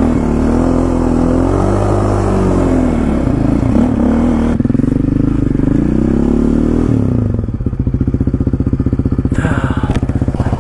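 Yamaha Raptor 700R quad's single-cylinder four-stroke engine running under changing throttle, its pitch rising and falling. About seven seconds in it drops to a low, steady, evenly pulsing idle.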